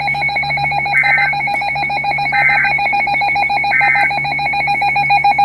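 Emergency Alert System end-of-message data bursts: three short two-tone warbling bursts about a second and a half apart, the signal that closes the alert. They sound over a steady, fast-pulsing electronic buzz.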